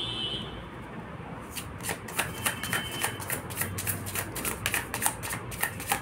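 Tarot cards being shuffled by hand: a quick, uneven run of crisp card flicks and slaps that starts about a second and a half in.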